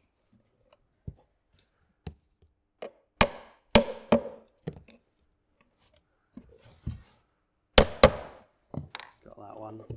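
Hammer blows driving small nails through a wooden hive roof into its inner bars: three sharp strikes about three seconds in and two more near the end, with a few light taps between.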